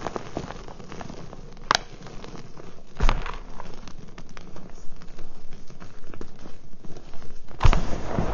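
Pink reformed gym chalk crumbled by hand in a plastic tub: dry crunching and crackling as lumps break and powder falls. There is a sharp snap about a second and a half in, a heavier crunch about three seconds in, and a louder burst of crunching near the end as the hands dig in.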